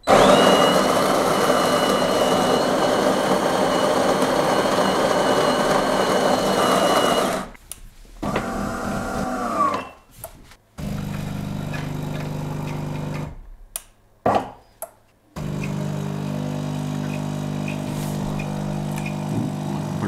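De'Longhi Dinamica Plus superautomatic coffee machine starting a drink: its built-in stainless-steel burr grinder grinds beans loudly for about seven seconds with a high whine, then the brew unit's motor whirs briefly. The pump then hums steadily as espresso is pushed through the coffee into the cup, stopping briefly twice about two thirds of the way in.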